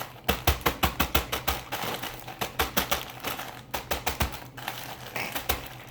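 Quick, irregular clicks and taps, several a second, thinning out over the last second or so.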